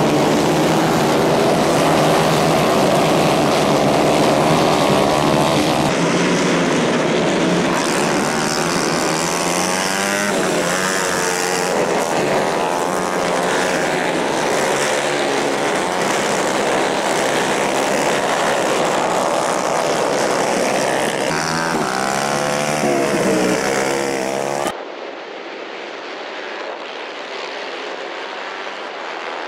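Several 150 cc racing kart engines running flat out on a dirt track, their pitch rising and falling as karts accelerate out of corners and pass by. A little over three quarters of the way through, the sound cuts abruptly to a quieter, more distant run of kart engines that grows louder near the end.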